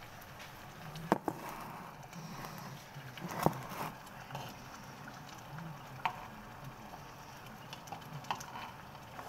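Wooden spoon stirring in a metal pot on a gas burner, knocking against the side of the pot a few times over a steady low hiss.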